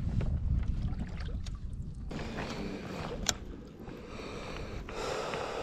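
Wind rumbling on the microphone and water against a plastic kayak hull, with light handling noise from a baitcasting rod and jig and one sharp click a little after three seconds in.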